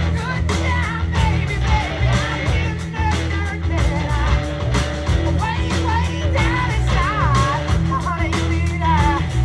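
A song with a singer's wavering melody over a steady drumbeat and heavy bass.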